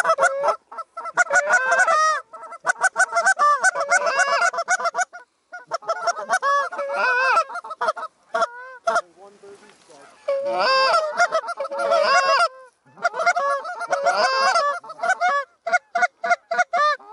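Canada goose honking and clucking: rapid, overlapping honks in loud runs of a few seconds, with short breaks and a quieter spell about halfway through.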